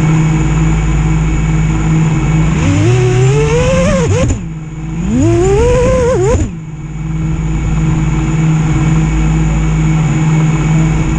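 Emax Eco 2306 1700kv brushless motors on an FPV freestyle quadcopter, armed and idling with a steady whine. They are throttled up twice, each a pitch sweep that rises and falls back, the first a little over two seconds in and the second about five seconds in, then they settle back to idle.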